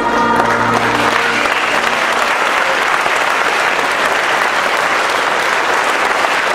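Audience applauding steadily, with the last held chord of the music dying away in about the first second.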